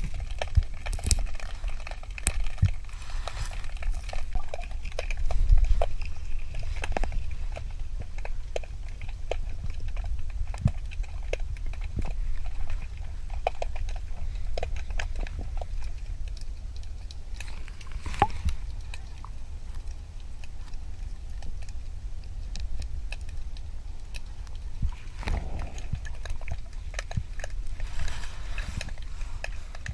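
Underwater river ambience heard through a diver's camera: a steady low rumble with scattered small clicks and crackles, and a few brief swells of noise.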